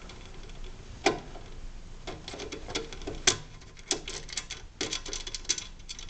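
Thin flat-blade screwdriver working loose the small brass emulsion tube in a snow thrower's carburetor: light, irregular metallic clicks and scrapes, closer together in the second half.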